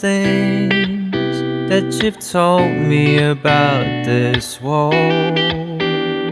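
Calm background music led by guitar.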